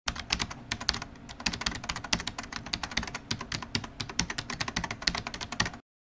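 Rapid, irregular typing on a computer keyboard, a quick run of keystroke clicks that stops abruptly near the end.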